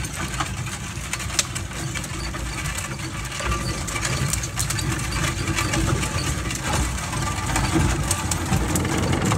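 Wagon rolling over a gravel road behind a team of two harnessed mules: a steady rumble of the wheels with scattered clicks and rattles from the trace chains and hooves, growing a little louder near the end.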